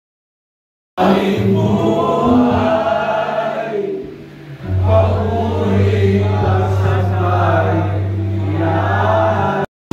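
A group of men singing a worship song together over a backing track with steady bass notes. It starts abruptly after a second of silence and cuts off suddenly just before the end.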